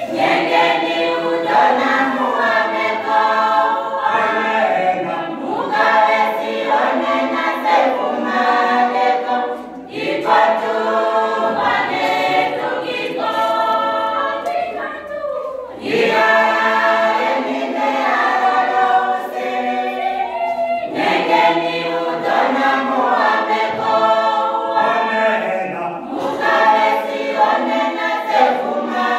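Choir singing a gospel song a cappella, several voices in harmony. It pauses briefly between phrases about ten and sixteen seconds in.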